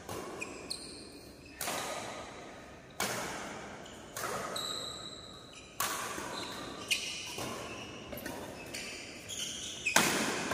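Badminton rally: about six sharp racket strikes on the shuttlecock, a second or two apart, each echoing in the hall, with brief squeaks of shoes on the court in between.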